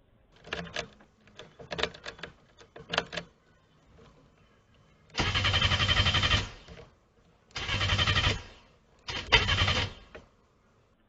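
Mitsubishi Lancer Evolution IX being cranked over by its starter in three short bursts, about a second each, without the engine catching. Before that come a few clicks and rattles of the key being worked in the ignition. The owner puts the no-start down to the ignition switch not registering that the key is in.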